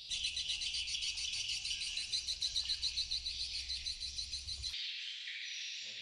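A flock of swiftlets chirping and twittering in a dense, rapidly pulsing chorus of high calls over a low hum. A little before the end the sound cuts to a fainter high chirping without the hum.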